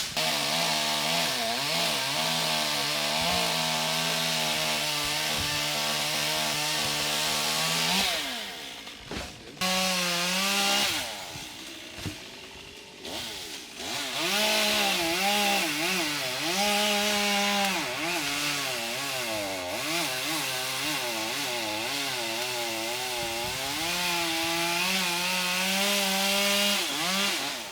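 Two-stroke chainsaw running and cutting into pin oak wood, its engine pitch sagging under load and picking back up again and again. It drops back briefly about a third of the way in and again near the middle.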